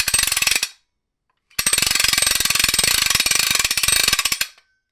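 Splash-screen sound effect played by the app: a short burst of rapid mechanical clicking, then after about a second's pause about three seconds more of fast, ratchet-like clicking that stops abruptly.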